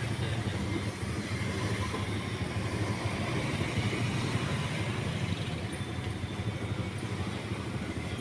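Steady low rumble of road traffic and a running vehicle engine, with no distinct events standing out.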